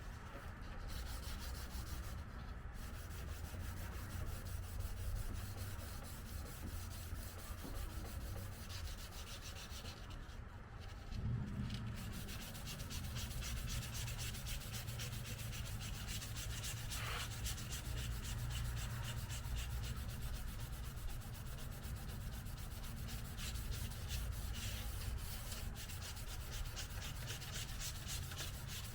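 Sandpaper rubbed by hand over a car body panel in rapid, even back-and-forth strokes, the paper rolled up for control around the edges.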